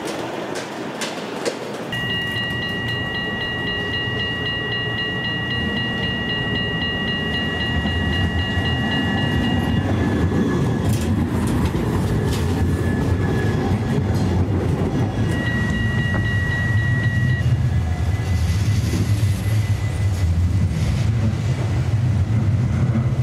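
Trams running on street rails: a few clicks at first, then a steady high-pitched squeal lasting about eight seconds and a shorter one later, over a low rumble that grows louder toward the end as a tram comes closer.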